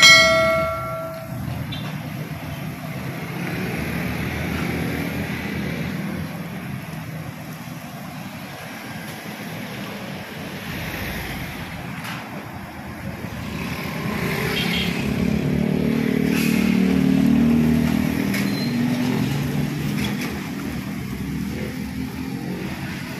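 Road traffic passing: a brief horn blast right at the start, then a steady wash of passing cars and motorcycles. Past the halfway point a heavier engine rumble swells, then fades.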